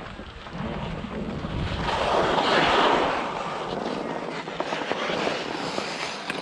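Skis scraping and hissing over hard-packed snow on a downhill run, with wind rushing over the microphone. The scraping swells to its loudest in the middle, then eases.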